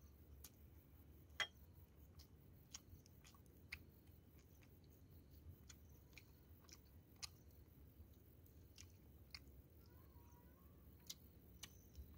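Faint eating sounds: someone chewing, with irregular sharp clicks and crunches, the loudest about a second and a half in.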